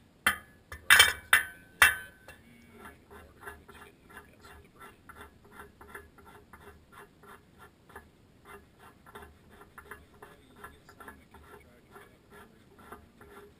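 A few sharp metal-on-metal knocks as a wrench works at the steel Y-strainer housing of an anhydrous ammonia applicator. These are followed by a steady run of light metallic clicks, about three a second, while the strainer is being removed from the housing.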